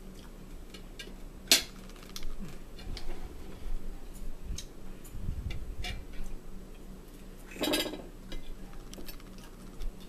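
Fork and knife clinking and scraping on dinner plates as food is cut. There is a sharp clink about a second and a half in and a short rattle of clinks near the end.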